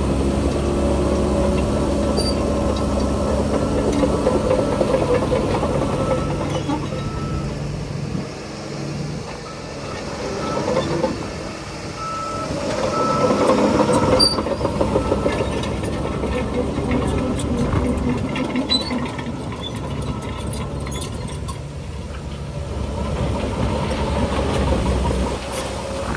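Heavy diesel earthmoving machinery running steadily, with a reversing alarm beeping on and off in the first half and scattered clicks and knocks later on.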